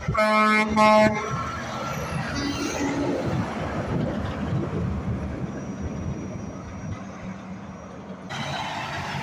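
Semi-truck air horn sounding two short blasts near the start. The tractor-trailer's diesel engine and tyres follow as it drives past close by, fading away.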